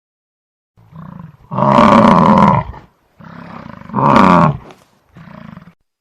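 Buffalo bellowing: two loud calls about two seconds apart, the first about a second long and falling in pitch at its end, each with a lower, quieter grunt before it, and one more short low grunt near the end.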